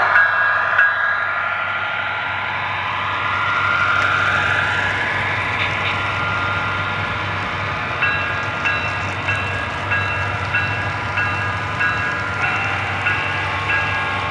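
HO scale model freight train rolling past, led by an Athearn Genesis CSX EMD SD70ACe model locomotive: a steady running hum, with a whine rising in pitch in the first few seconds. From about eight seconds in, the cars' wheels click over the rail joints in an even rhythm, about one and a half clicks a second.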